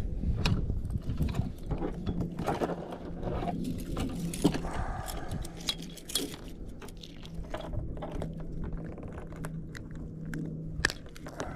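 Scattered clinks, rattles and knocks as a caught spotted bass is handled and put on a fish stringer in a kayak.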